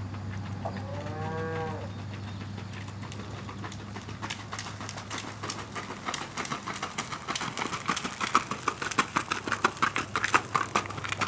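Hoofbeats of a barefoot Tennessee Walking Horse gaiting on gravel, a rapid run of crunching footfalls that begins about four seconds in and grows louder as the horse comes close. About a second in, a cow moos once in the background.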